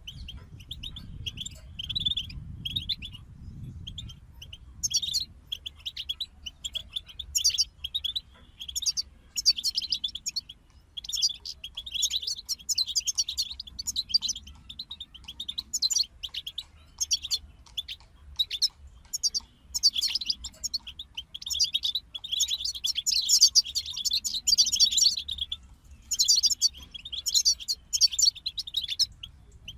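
European goldfinches singing: fast, twittering phrases of chirps and trills that come in bursts of a second or more with short pauses between.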